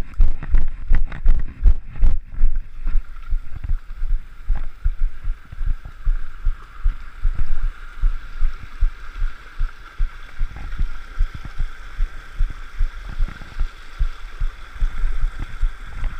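Rhythmic thudding footfalls of a runner carrying the camera, about three a second, knocking through the body-worn mount. From about three seconds in, the steady rush of a small rocky stream sits under the steps.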